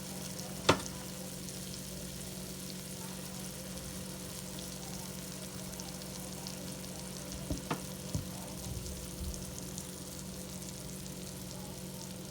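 Chicken feet sizzling steadily in oil and sauce in a pan. There is one sharp knock about a second in and a few softer knocks around eight seconds in.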